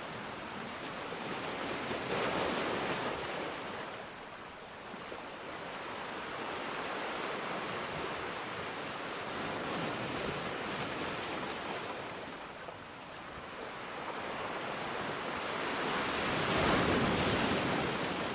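Sea waves washing onto the shore, a steady rush of surf that swells three times, the last swell near the end the loudest.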